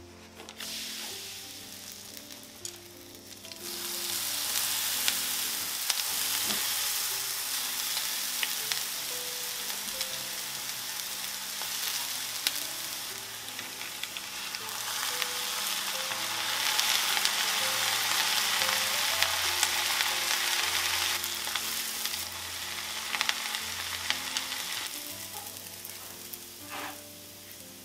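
Batter-coated shredded carrot shallow-frying in hot oil in a frying pan: a loud sizzle starts about four seconds in as the batter meets the oil and dies down near the end.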